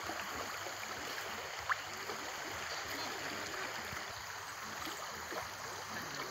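Steady rush of flowing river water. A single brief, high-pitched chirp about two seconds in.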